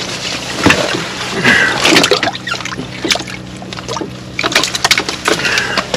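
Water splashing and sloshing in a slushy ice-fishing hole as a hooked bluegill is pulled up through it, mixed with irregular scraping and rustling from the angler's handling.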